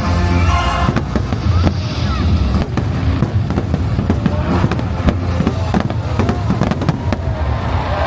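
A fireworks finale: rapid, overlapping bursts and crackles over loud show music with a heavy bass.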